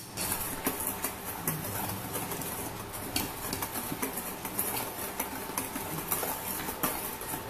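Wire whisk stirring dry seasoned flour in a stainless steel bowl: a steady run of even scraping strokes, with the wires clicking against the metal side.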